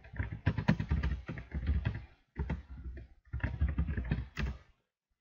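Fast typing on a computer keyboard, key clicks in three quick runs with short pauses between, stopping near the end.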